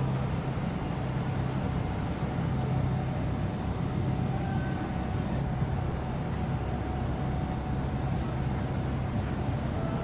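Steady low hum of a cruise ship's machinery and ventilation, unchanging, over an even background rush.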